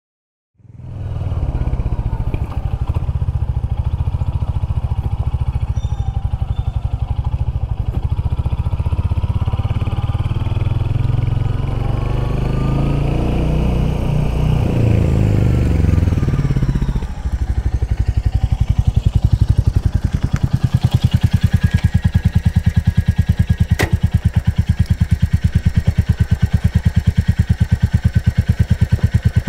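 Royal Enfield Hunter 350's single-cylinder engine riding along, growing louder as it comes closer, then after a sudden break about halfway through idling up close with steady, evenly spaced exhaust beats. A single sharp click sounds once during the idle.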